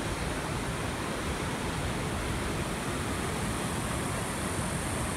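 Steady rush of ocean surf, waves breaking over a rocky reef and washing onto the beach.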